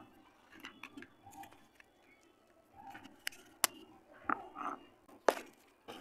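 Crumbled dry multani mitti (Fuller's earth clay) pattering and rustling as it is tipped and brushed into a plastic tub, then sharp clicks of a plastic lid being handled and pressed on. There are a couple of clicks a little after the middle, and the loudest comes near the end.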